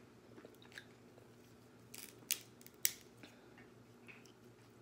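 King crab leg shell cracking and snapping as it is pulled apart by hand, with a few short sharp cracks about two to three seconds in.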